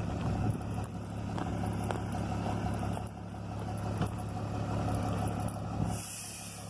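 Ford truck's engine with a straight-through exhaust ("diretão") running steadily at idle, a low even rumble. A brief hiss comes about six seconds in.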